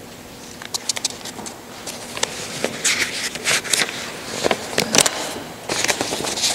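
Sheets of paper rustling and crackling close to a microphone as they are handled and leafed through: irregular crinkles and scrapes, sparse at first and busier from about two and a half seconds in.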